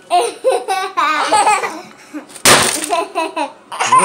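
A baking tray of set peppermint bark dropped once, about two and a half seconds in, with a sharp crash as the candy slab breaks into pieces. A young child laughs and squeals around it.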